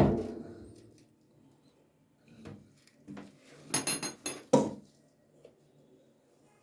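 A loud metal strike that rings and fades over about a second, then, a couple of seconds later, a quick run of lighter metal clanks and knocks, from tools and parts being worked on during a washing-machine drum bearing replacement.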